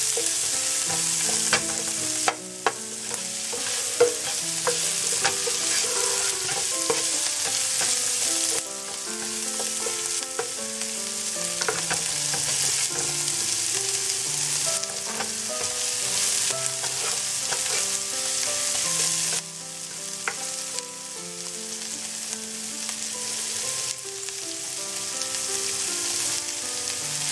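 Diced onions and whole spices sizzling in hot olive oil in a nonstick frying pan, a steady crackling hiss. A spoon taps and scrapes the pan a few times while stirring, mostly in the first few seconds.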